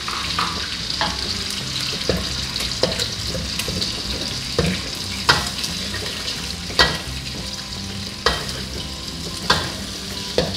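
Chicken eggs frying in hot oil in a wok with a steady sizzle, while a metal spatula scrapes and knocks against the wok about once a second as the eggs are stirred and broken up.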